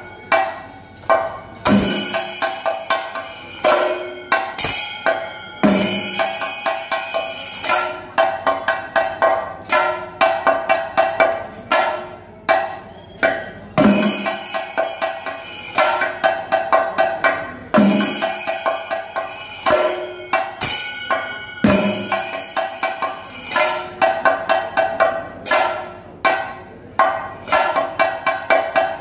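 Thayambaka ensemble of Kerala chenda drums: a lead chenda played with sticks in rapid, dense strokes over accompanying chendas, with a heavy low stroke marking each phrase roughly every four seconds.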